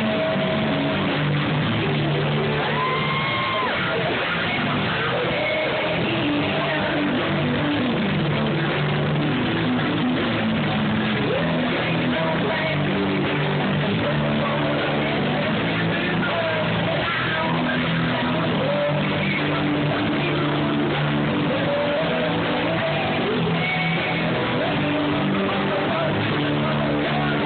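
Rock band playing live: electric guitars and bass with a sung vocal line over a steady, loud full-band mix, recorded on a phone from the crowd.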